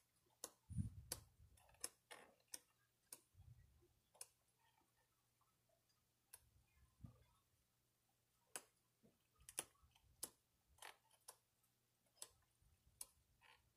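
Sheets of a 12x12 scrapbook paper pad being turned one by one, giving faint, sharp paper clicks at irregular intervals, with a few soft low thumps of handling in the first few seconds.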